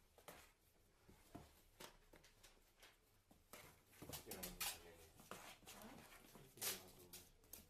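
Faint animal vocal sounds, a few short pitched calls, among soft clicks and knocks.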